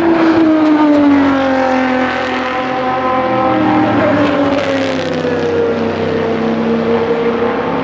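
Several race cars' engines running at speed as the cars pass and pull away along the circuit; their engine notes fall steadily in pitch, with more than one car heard at once.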